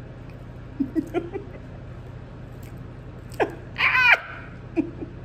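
A woman's laughing reaction to a mouthful of cake: a few short low hums about a second in, then a loud, high-pitched laughing squeal that swoops up and down near four seconds in.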